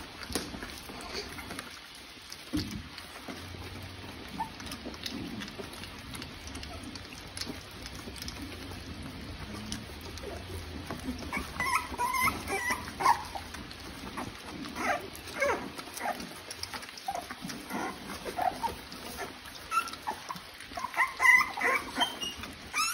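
Three-week-old American Bully puppies lapping and smacking at wet mush, with short high-pitched puppy whimpers and squeaks joining about halfway through and coming more often near the end.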